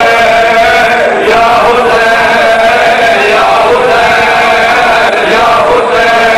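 A group of male reciters chanting a noha, a Shia mourning lament, into microphones. The melodic chant continues throughout, amplified over a sound system.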